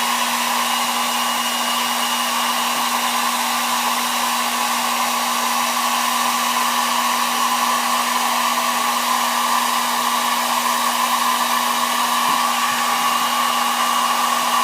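Handheld hot-air blower running steadily with a constant hum, heating the phone's glass to soften the adhesive under the screen.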